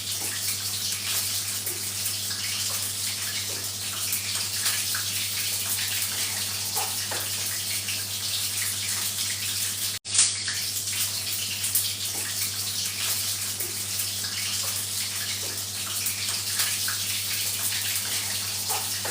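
Water running steadily, like a tap, over a low steady hum; the sound cuts out for an instant about halfway through.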